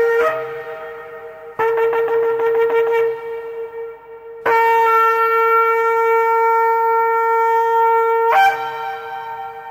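A horn-like wind instrument blowing one unchanging note in repeated long blasts: a new blast about one and a half seconds in, another about four and a half seconds in held steady for some four seconds, and a last one near the end that fades away.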